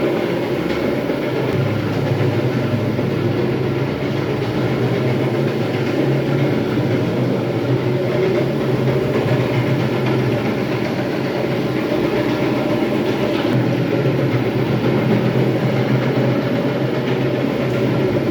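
Electric terrazzo grinder running and grinding a floor: a loud, steady mechanical rumble with a constant low hum.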